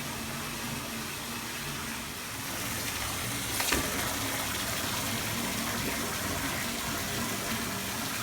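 Water running from a tap into a bathtub as it fills, a steady rush, with one short knock about three and a half seconds in.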